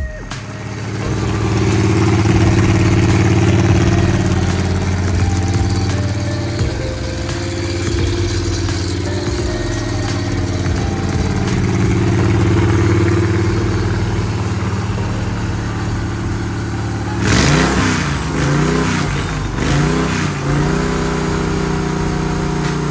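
DuroMax XP35HPE 999cc V-twin engine running steadily through its custom exhaust. About three-quarters of the way through it is revved up and back down about three times in quick succession, then settles back to a steady run.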